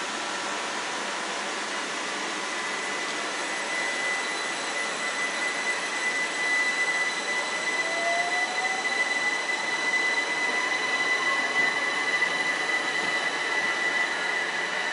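Southern electric multiple-unit passenger train pulling away from the platform, with a steady electric hum and hiss. The traction motors' whine rises in pitch from about eight seconds in as the train gathers speed.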